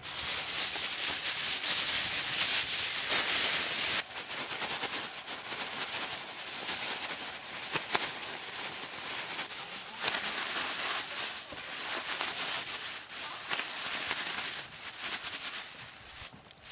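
Thin plastic bag crinkling and rustling loudly as it is shaken and squeezed by hand to toss shredded green onions with seasoning. There is a brief dip about four seconds in, and it grows quieter near the end.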